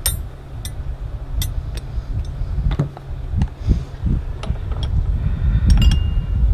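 Scattered light metal clicks and clinks from a wrench and hands working on the power steering pump and its lines, over a steady low rumble.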